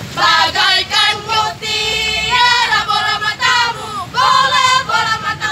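A group of girls singing together in unison, in short loud phrases with brief breaks between them.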